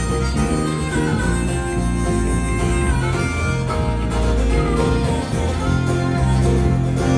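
Live Americana band playing an instrumental passage: harmonica lead over strummed acoustic guitars and electric bass.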